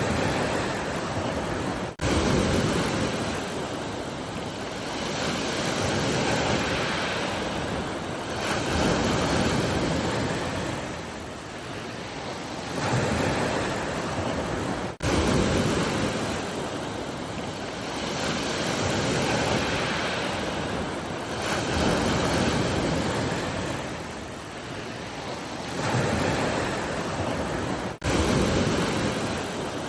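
Sea waves breaking and washing in, the surge swelling and falling away every few seconds. Three sudden brief dropouts break the sound, about two seconds in, halfway through and near the end.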